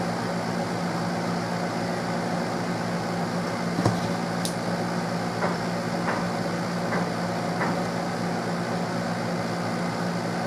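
Steady hum of a running fan with a low drone throughout. A sharp click comes about four seconds in, then a few faint ticks.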